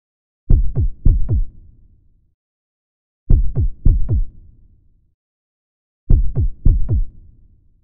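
Synthesized heartbeat made of deep, kick-drum-like thumps that drop in pitch. Each beat comes as two quick double beats, and the groups repeat about every three seconds, three times.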